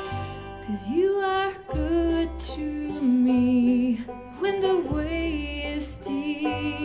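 Acoustic string band playing a song: a voice sings a melody with vibrato and sliding notes over plucked strings and a bass line.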